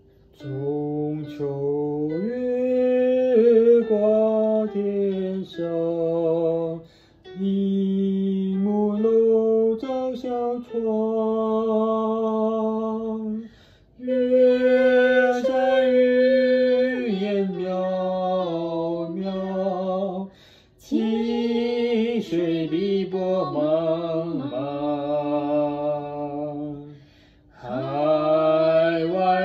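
A voice singing a slow melody unaccompanied-sounding, in long held notes, phrase by phrase, with a short pause for breath every five or six seconds.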